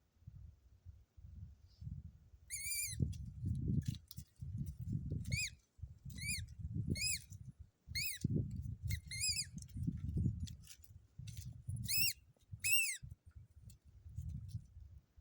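Rubber squeaky dog toy ball squeaking in short rising-and-falling squeaks, about eight or nine times, as a dog bites and chews it, over continual low muffled thumping and rustling from the chewing.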